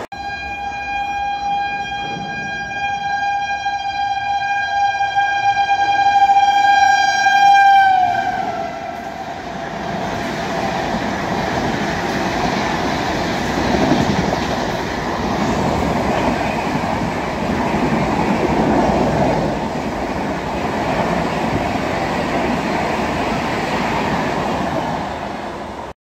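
Indian Railways express train passing at speed. The locomotive horn is held on one note for about eight seconds and drops in pitch as the locomotive goes by, and the coaches then rush past with a steady rumble and wheel clatter.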